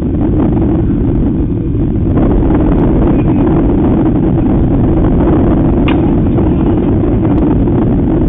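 Wind buffeting the microphone: a loud, steady low rumble, with one brief sharp click about six seconds in.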